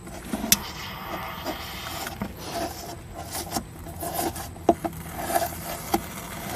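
Rasping and scraping with scattered sharp clicks as a heated knife is worked through the thin plastic wall of a portable refrigerator's compartment.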